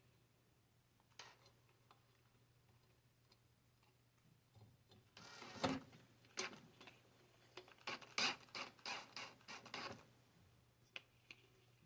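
Hands handling and fitting small plastic parts on the cart's cable run: a cluster of rubbing, rustling and clicks in the second half, with a lone click before it and another near the end.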